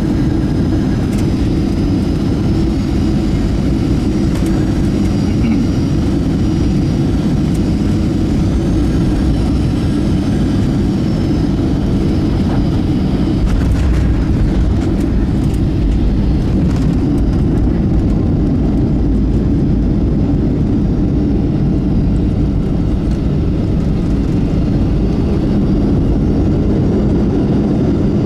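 Steady low rumble and engine whine of a Boeing 737 airliner heard from inside the cabin as it rolls and taxis on the ground after landing.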